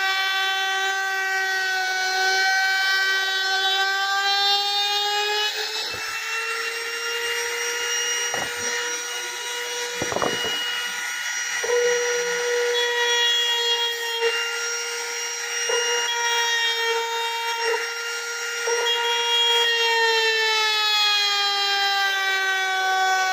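Compact trim router (laminate trimmer) running at high speed, with a steady high whine as it trims the edge of a laminated board. Its pitch rises about six seconds in and sinks back near the end, with a few light knocks in the middle.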